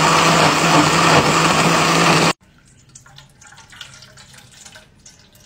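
Miyako countertop blender running steadily as it blends pandan leaves with water, cutting off suddenly about two seconds in. Then comes the faint trickle of the green pandan liquid being poured through a strainer into an aluminium pot.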